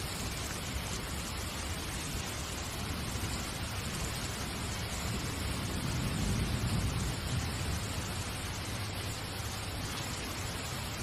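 A steady, even hiss like falling rain, with a low rumble that swells briefly about six seconds in.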